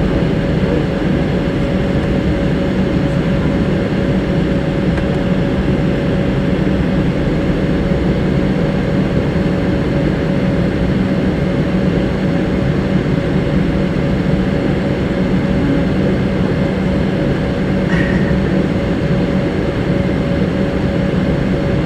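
Cabin noise of an Embraer 190 taxiing, its two GE CF34-10E turbofans running steadily at low thrust: a loud, even hum with a constant tone in it. A short, faint, high chirp sounds near the end.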